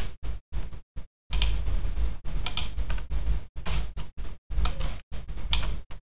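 Scattered computer keyboard and mouse clicks over a low background rumble that cuts out to dead silence several times.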